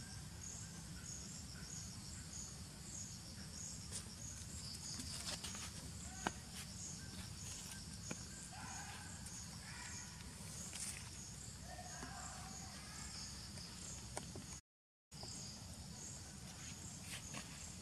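Crickets chirping in a steady, evenly pulsing rhythm of about three chirps a second over a low background rumble, with a few faint clicks and faint calls around the middle. The audio drops out for about half a second near the end.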